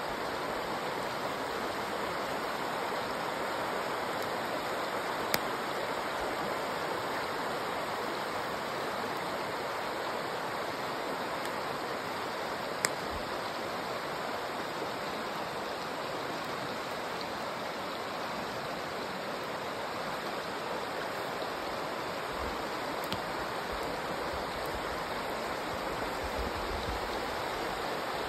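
A rocky stream running with a steady rush of water. Two brief sharp clicks sound through it, about five seconds in and again about thirteen seconds in.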